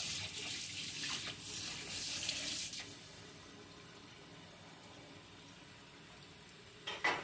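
Kitchen sink tap running as a knife is rinsed under it, then shut off just under three seconds in. A brief, sharper sound near the end.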